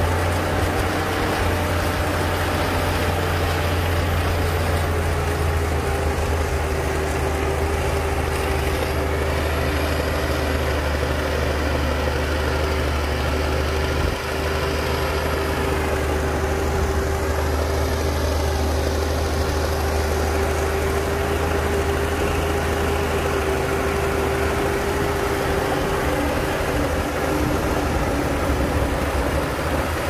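Heavy earthmoving machine's diesel engine running steadily with a deep rumble and a steady whine over it, dipping briefly about halfway through.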